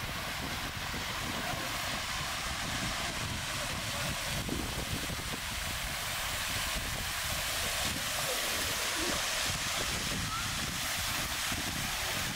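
Wind rumbling and buffeting on the microphone over a steady outdoor background hiss.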